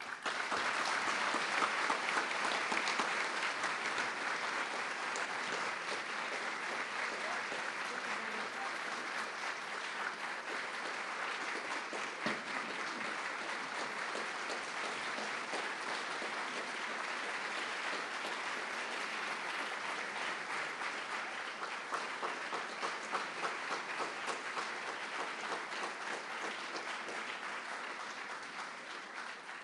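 Audience applauding, a steady dense clapping that starts at once and dies away near the end.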